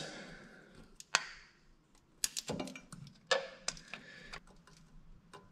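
Flathead screwdriver picking and prying at a broken oil sight glass in a BMW motorcycle's engine case: irregular sharp clicks and short scrapes of steel on glass and metal.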